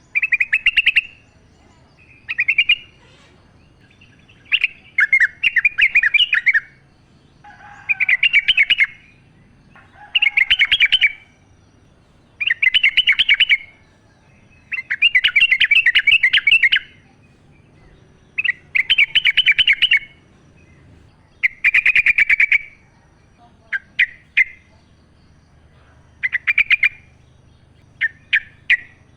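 Yellow-vented bulbul singing: bubbly, chattering phrases of quick notes, each a second or two long, repeated after short pauses, with a few shorter snippets near the end.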